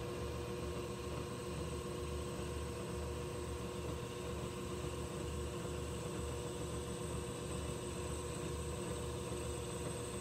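South Bend Heavy 10 metal lathe running steadily, a machine hum with several steady tones and a low, regular throb underneath, while a small shoulder is turned on a pen part.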